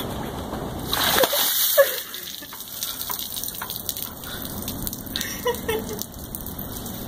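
A bucket of ice water dumped over a person, gushing down and splashing onto the paving about a second in, then water dripping and pattering on the ground.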